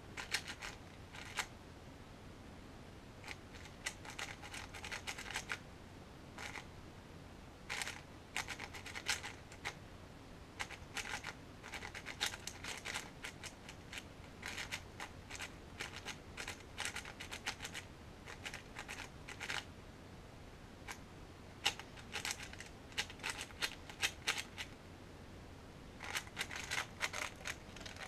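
Qiyi MS 4x4 speedcube being turned fast by hand: bursts of rapid plastic clicking and clacking as the layers snap round, broken by brief pauses between move sequences.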